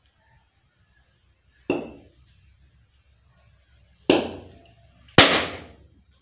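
A coconut struck hard against a hard surface three times: three sharp cracks, the second and third close together and loudest.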